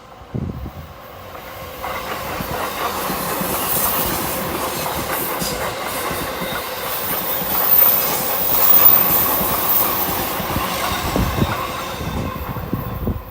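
A Chuo Line electric train running past, its wheels clattering on the rails. It builds over the first couple of seconds, is loudest about eight to nine seconds in, and falls away suddenly at the end.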